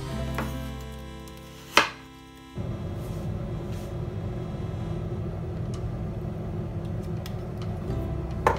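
Background music, with one sharp knife chop on a cutting board about two seconds in; after that a steady low hum runs under the music.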